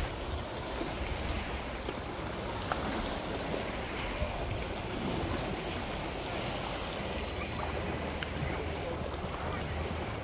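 Small sea waves washing steadily against a pebble beach, with wind noise on the microphone.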